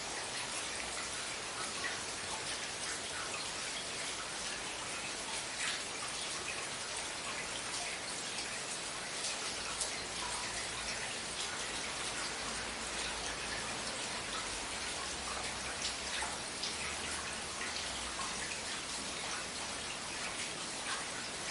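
Steady rain: a dense hiss of falling rain with individual drops and drips ticking through it. A low rumble comes in around the middle and fades out near the end.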